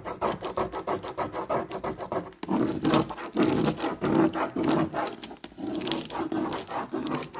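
Rub-on décor transfer being rubbed down onto a chalk-painted fireplace screen: fast, even back-and-forth strokes, about eight a second, for the first two seconds, then louder, slower strokes.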